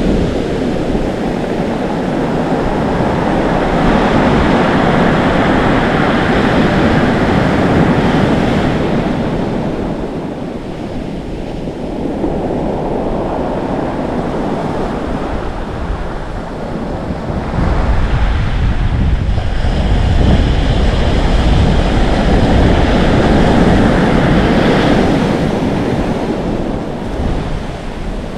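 Atlantic Ocean surf: waves breaking, foaming and fizzing as they wash in, with wind buffeting the microphone. The surge swells and ebbs, with a dip around 10 to 12 seconds in and a heavy, rumbling wave from about 18 seconds.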